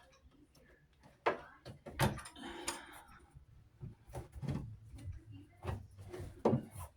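Scattered knocks and clicks of hand tools and fittings being handled under a sink, about seven irregular hits.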